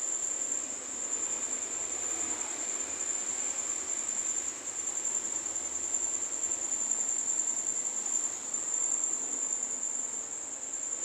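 Insects, crickets by their sound, trilling steadily on one high, unbroken note, over faint background noise.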